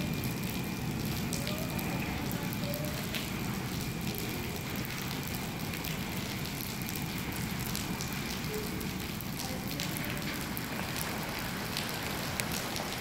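The last cars of a double-stack container train roll past and away: a steady rushing hiss scattered with clicks and crackles from the wheels on the rails, easing slightly toward the end.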